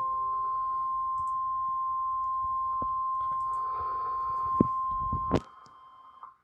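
NOAA Weather Radio's 1050 Hz warning alarm tone: one steady, unbroken beep that signals a warning is about to be read. It cuts off about five seconds in with a couple of sharp clicks, then fades out.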